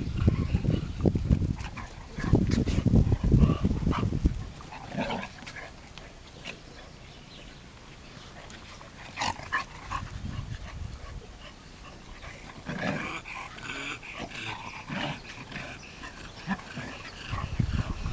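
Dogs at play, giving scattered yips and short growls. A loud low rumbling noise fills the first four seconds, then it goes quieter.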